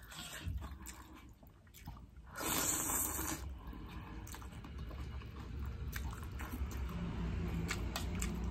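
A person eating noodles: a loud slurp of noodles a little over two seconds in, then chewing with a few light clicks.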